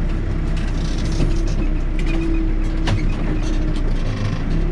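Backhoe loader's diesel engine running steadily while working, with a couple of sharp knocks about one and three seconds in.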